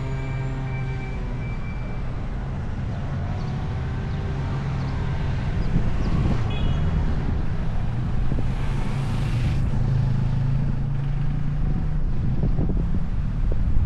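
Car driving along a winding road: a steady engine hum under road and wind noise, with another pitched engine sound fading out in the first couple of seconds and gusty buffeting near the end.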